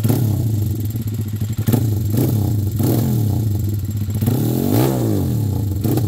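Honda XR200 race bike's custom-built air-cooled single-cylinder four-stroke engine idling with several quick throttle blips, and one bigger rev rising and falling about five seconds in.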